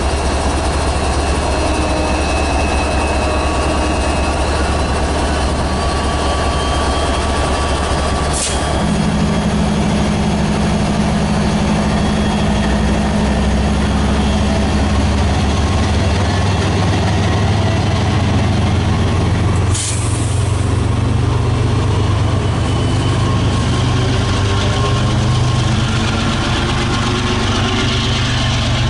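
MBTA HSP-46 diesel locomotive standing and running, a steady deep engine drone. About eight seconds in its note steps up and grows fuller. Two brief sharp clicks come about eight and twenty seconds in.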